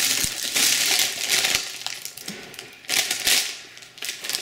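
Plastic snack wrappers and packaged food crinkling as they are picked up and shuffled by hand, in two bursts with a short pause between.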